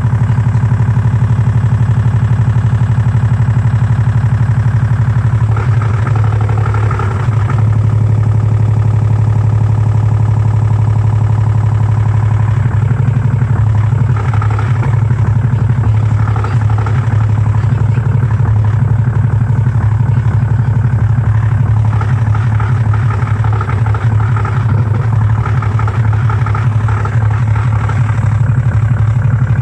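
LG washing machine on its spin cycle: a steady low hum from the spinning drum and motor. A rattling clatter joins about five seconds in and comes and goes.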